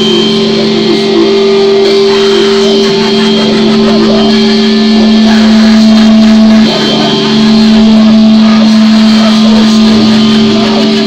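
Live band playing loud, amplified music: electric guitars and bass over drums, with an accordion, on long held chords that change briefly about two-thirds of the way through.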